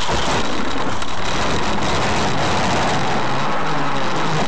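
Loud, steady rushing noise on a car dashcam's recording, with a faint low hum beneath it.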